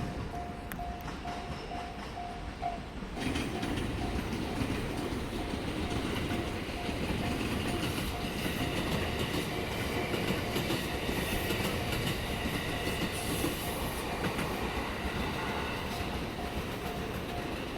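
A train passes over a level crossing from about three seconds in, its wheels clattering over the rail joints, while the crossing's warning bell keeps sounding at about two strikes a second.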